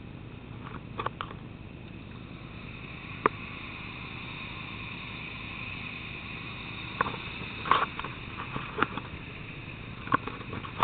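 Steady road and engine noise inside a moving car's cabin, a little louder in the middle, with several sharp knocks from the phone being handled.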